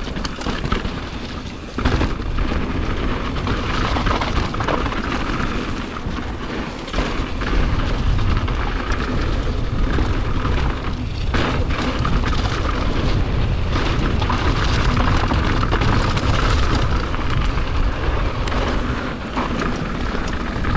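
Mountain bike descending a loose stone and gravel trail: tyres rolling and crunching over rock, the bike rattling with frequent sharp knocks, under a heavy low rumble of wind buffeting the camera microphone.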